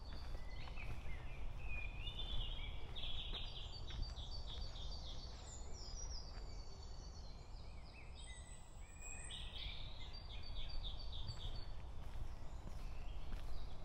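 Songbirds singing in woodland: repeated phrases of quick high notes and short falling note series, with a lull about halfway through, over a steady low rumble.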